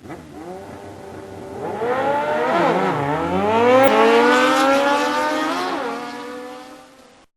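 Car engine accelerating, its pitch climbing, dipping and climbing again about three seconds in, then holding as the sound fades out.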